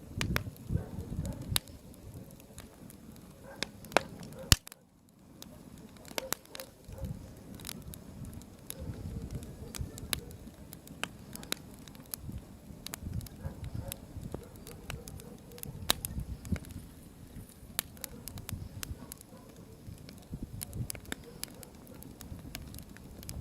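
Wood bonfire burning, crackling with scattered sharp pops over a low rumble. The sound drops out briefly about five seconds in.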